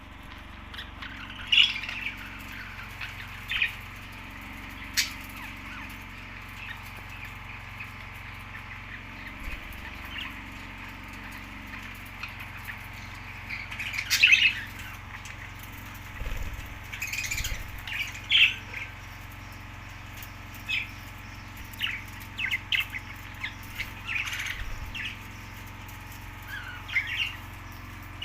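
Budgerigars giving short chirps and squawks at irregular intervals, over a steady low hum.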